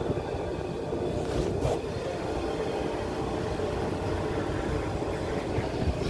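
Harbor Breeze Builders Best ceiling fan running at speed: a steady whir of motor and blades with a low rumble and a faint hum.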